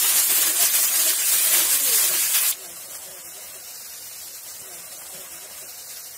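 Fish curry sizzling in a hot wok over a wood fire as it is stirred. The loud sizzle cuts off suddenly about two and a half seconds in, leaving a much quieter hiss.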